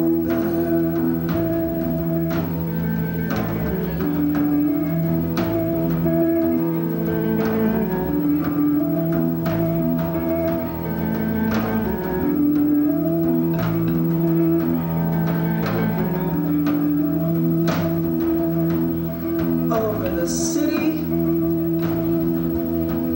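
Live rock band playing a slow instrumental passage: electric guitar holding long ringing notes that change every second or two, over drum hits about once a second.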